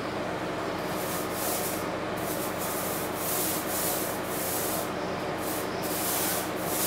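Repeated scraping strokes of a hand applicator spreading RedGard liquid waterproofing membrane across a shower floor, about one to two strokes a second.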